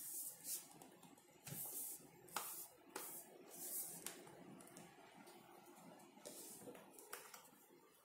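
Faint handling noise of a Lenovo Flex 2-14 laptop being turned over by hand on a work mat: the plastic case sliding and rubbing, with a few light knocks, mostly in the first half.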